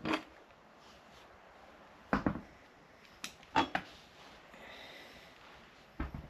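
Handling noise from work on the quad: separate knocks and clanks of metal tools and parts being picked up and set down, about five in six seconds, a couple ringing briefly.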